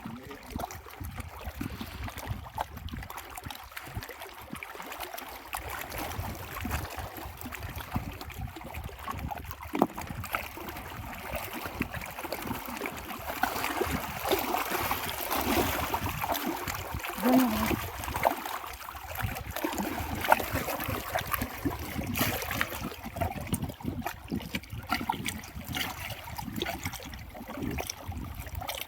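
Water splashing and trickling, broken by scattered small knocks and clicks. It gets busier and louder for several seconds around the middle.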